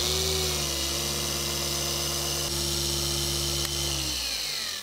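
Dual action polisher with a foam pad running steadily against car paint during a firm finishing polishing pass to take out light ticking. About four seconds in it is switched off and its pitch falls as it spins down.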